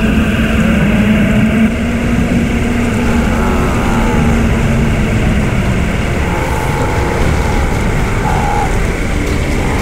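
Loud, steady low rumbling drone, with a held low hum for the first three seconds or so and faint higher tones drifting in later.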